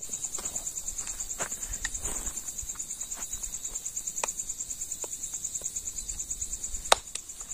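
Crickets trilling steadily at night in a high, fast-pulsing chirr, with scattered faint clicks and one sharp click near the end.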